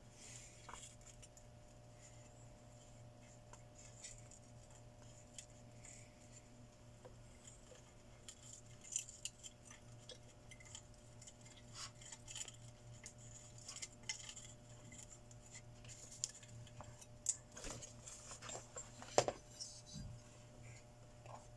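Faint scattered clicks and light metallic clinks of small tools and parts being handled at a repair bench, over a steady low hum, with a sharper click about nineteen seconds in.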